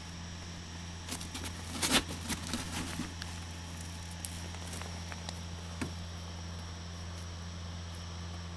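Knocks and watery splashes from a small rowing canoe and its oars, a quick cluster about two seconds in and a few lighter clicks after, over a steady low hum.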